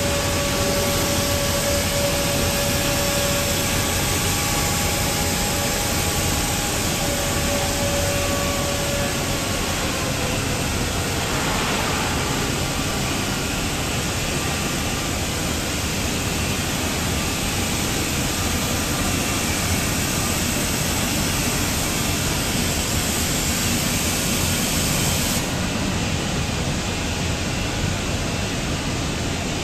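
Wide-belt veneer sanding machine running with a steady, dense rushing noise as a veneered panel is fed through it. A steady whine in the first stretch slides down in pitch and fades about ten seconds in.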